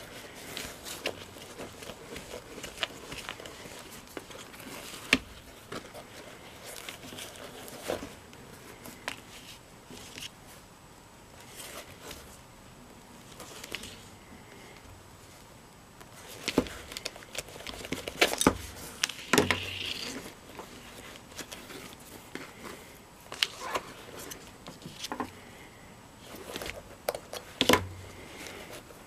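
Hands handling a leather moccasin while working a lacing cord through its holes: leather and cord rustling, with scattered sharp clicks and knocks, several in a cluster a little past halfway.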